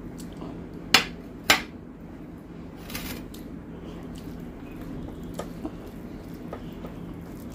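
A glass bowl clinks twice against dishes as it is set down after pouring curry, two sharp knocks about half a second apart, each with a short ring. After that come faint soft ticks as rice and curry are mixed by hand on a steel plate.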